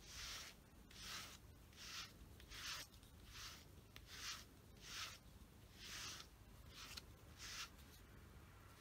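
Wire-pin grooming brush being drawn through a short-haired cat's coat, pulling out loose undercoat: a faint, regular run of scratchy strokes, about three every two seconds.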